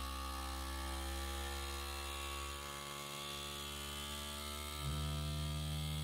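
FoodSaver FM2000 vacuum sealer's pump running with a steady hum, pulling the air out of a mason jar through its jar-attachment hose. It grows slightly louder near the end as the vacuum builds.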